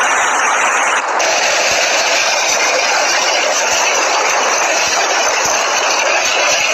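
Loud, steady rushing noise of a storm, changing abruptly about a second in.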